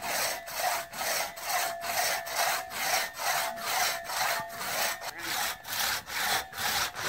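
A 6-foot two-man crosscut saw cutting through a log in a steady back-and-forth rhythm, about two and a half rasping strokes a second. The saw cuts in both directions, so every pull is a cutting stroke.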